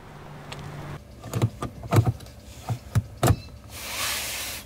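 A series of clunks and knocks from hands working around a small mobile CB radio mounted inside a Jeep's cabin, then about a second of steady hiss near the end that cuts off abruptly.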